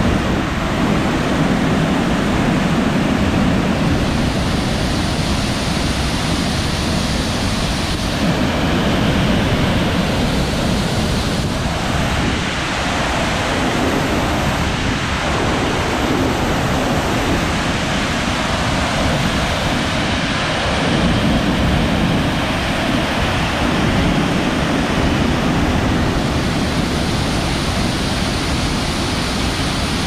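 Middle North Falls, a tall waterfall, pouring onto rocks: a loud, steady rushing roar of falling water.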